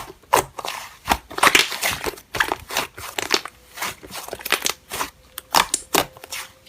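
Slime being squeezed and played with by hand, making a run of irregular clicks and crackling pops.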